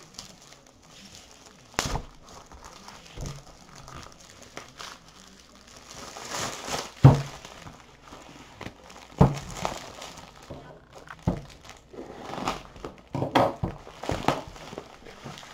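A plastic mailer bag and bubble wrap being pulled off a shipping tube: irregular crinkling and rustling of plastic, with a few sharp knocks as the package is handled on a wooden table.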